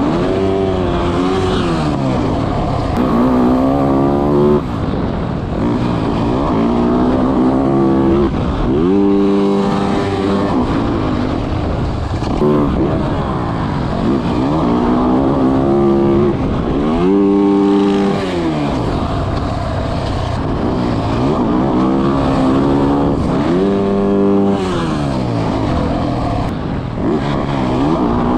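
Motocross dirt bike engine being ridden hard, revving up and dropping off again and again as the throttle is opened and chopped. The pitch climbs and falls every few seconds.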